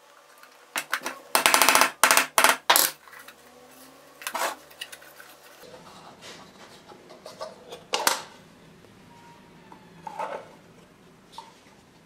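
Laser-cut wooden box parts clicking and knocking as the box is assembled and handled. A quick clatter of sharp knocks comes in the first three seconds, then a few single knocks follow.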